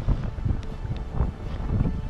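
Wind buffeting the camera microphone: uneven low rumbling gusts.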